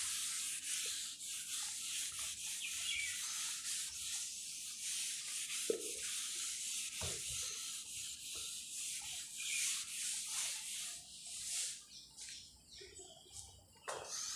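Whiteboard duster rubbing across a whiteboard, a hissing wipe made of many back-and-forth strokes, which dies away about twelve seconds in.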